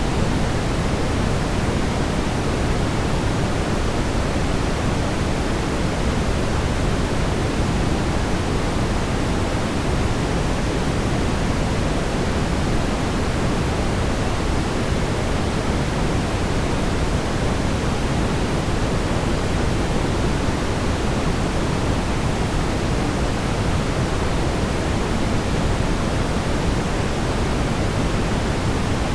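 Steady brown noise: an even, unbroken rumbling hiss weighted toward the low end, with no changes.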